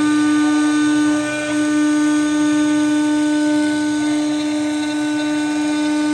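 CNC router spindle running with a steady whine and its overtones while a fine fret-slotting bit cuts the fret slots into a guitar fretboard.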